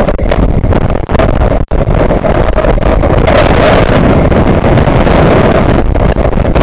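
Wind buffeting the camera's microphone as it swings through the air on a fairground chain swing ride: a loud, distorted, continuous rush of air, with a brief dropout about a second and a half in.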